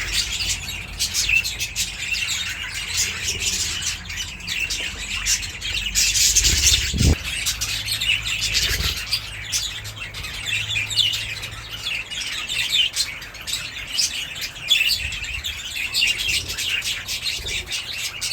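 A flock of budgerigars chattering and chirping continuously in an aviary, with a brief louder rush about six to seven seconds in.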